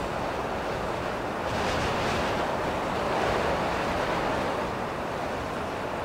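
Strong wind blowing in gusts: a steady rushing that swells from about a second and a half in, peaks around the middle, and eases off again toward the end.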